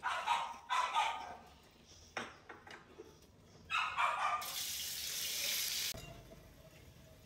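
A dog barks a few times, then a steady hiss lasts about a second and a half.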